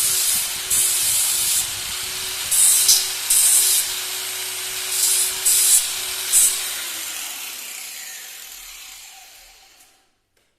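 Electric power tool running with a steady hum and repeated short hissing bursts as it works metal, then switched off and winding down, its pitch falling as it fades out about nine seconds in.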